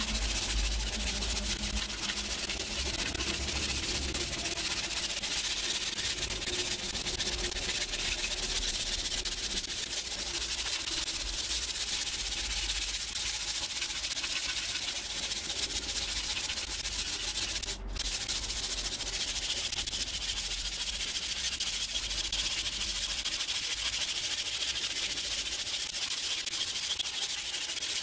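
Sandpaper rubbed by hand along a weathered wooden tool handle, sanding off the old worn finish: a steady scratchy hiss with a momentary break about two-thirds of the way through.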